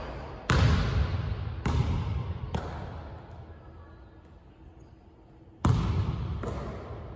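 Basketball bouncing on a hardwood gym floor, each bounce ringing on in the gym's echo: three bounces coming closer together in the first three seconds, then two more near the end.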